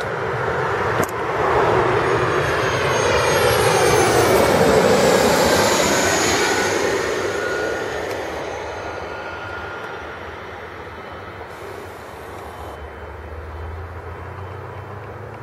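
Small twin-engine business jet passing low on landing approach: the turbofan whine swells to its loudest about four to five seconds in, drops in pitch as the jet goes by, then fades away.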